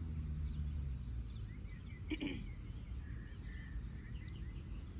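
Faint outdoor ambience with scattered short bird chirps over a low hum that fades away in the first second or two.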